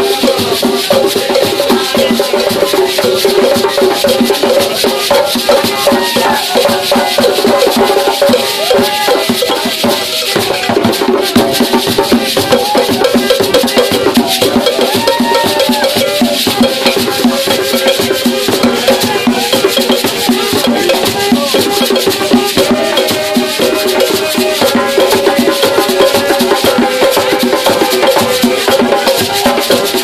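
Gwo ka music: hand-played ka drums keep a steady driving rhythm while gourd shakers rattle along. Hand claps and voices singing over the drums join in.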